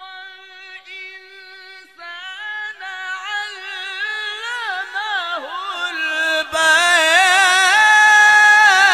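A male qari reciting the Quran in the melodic, unaccompanied tajwid style. He holds a long note, then sings a winding, ornamented phrase that climbs and grows louder, jumping up in volume about six and a half seconds in and ending on a high held note.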